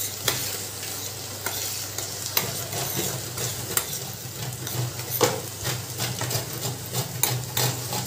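Steel spoon stirring grated white gourd as it fries in ghee in a steel kadhai, with irregular scrapes and clicks against the pan over a steady sizzle, while a coconut is grated by hand alongside. The gourd is being roasted in the ghee to drive out its water. A low steady hum sits underneath.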